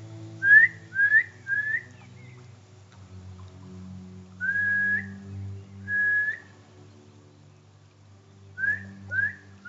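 A person whistling to call a dog back. There are three short rising whistles, then two longer held notes that lift at the end, then two more short rising whistles near the end.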